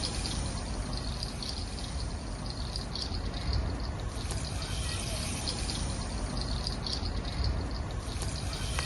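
Steady rushing noise with a heavy low rumble, and short high chirps scattered through it.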